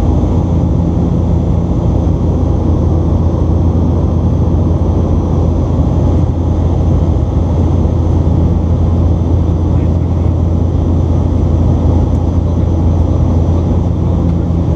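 Inside the cabin of a Bombardier Dash 8 Q400 beside the propeller: the steady, loud drone of its Pratt & Whitney PW150A turboprop and six-bladed propeller. A deep hum with a second hum above it sits over a rushing noise, with no change in pitch.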